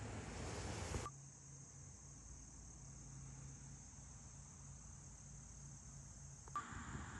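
Steady, high-pitched chorus of insects such as crickets, chirring in summer grass. A louder rush of noise, like wind on the microphone, fills about the first second and cuts off abruptly.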